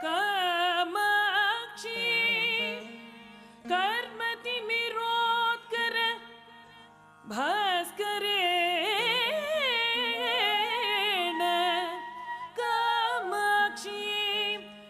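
Carnatic vocal music: a singer's sliding, heavily ornamented melody over a steady drone, sung in phrases with short pauses between them.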